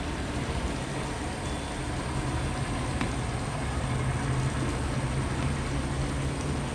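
A steady, low engine drone that holds evenly throughout.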